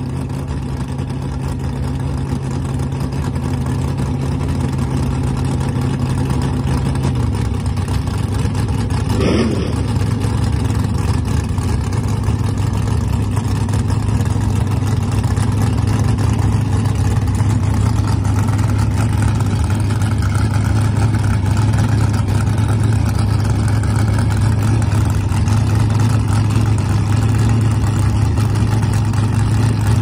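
Fox-body Ford Mustang drag car's engine idling with a steady note that drops slightly about seven seconds in. About nine seconds in there is a quick rev up and back down.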